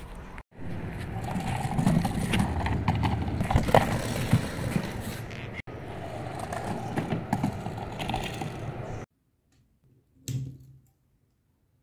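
Small rubber-tyred LEGO Technic bike rolling across outdoor plank decking: a steady rumble with scattered small knocks. It cuts off about nine seconds in, and a brief handling knock follows about a second later.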